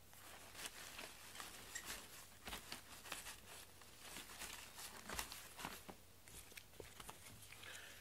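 Faint, irregular rustling and crinkling of artificial flowers and their plastic stems being handled and arranged.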